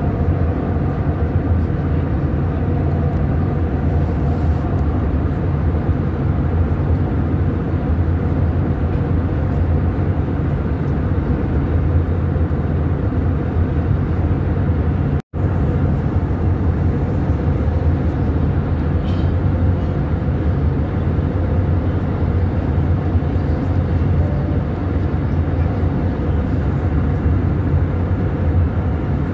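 Airbus A320neo cabin noise in flight, heard from a window seat beside the engine: a steady, even drone of engine and airflow with a strong low rumble. The sound drops out completely for an instant about halfway through.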